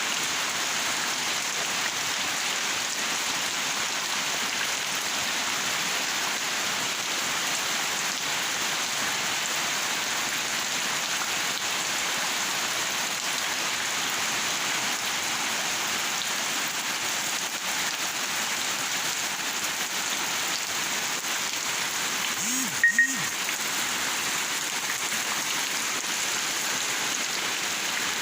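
Steady rain falling, an even hiss throughout. About three-quarters of the way through there is one brief, louder sound.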